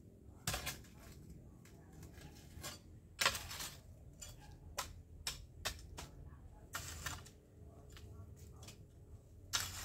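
A long-handled hoe striking and scraping dry soil and leaves, in irregular strokes: sharp clicks with a longer scrape about three seconds in and another about seven seconds in.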